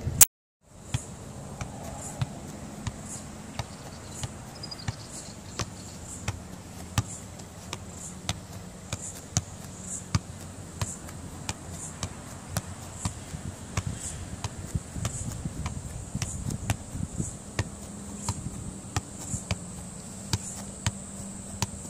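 Football being juggled on foot and knee, each touch a short dull tap on the ball in a steady rhythm of roughly one to two touches a second.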